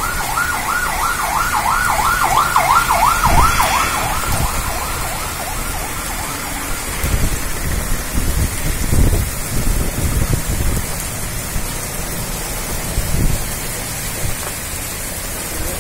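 Heavy rain pouring steadily. A siren wails rapidly up and down, about three cycles a second, fading out about six seconds in. Deep rumbles come and go underneath, the loudest about nine seconds in.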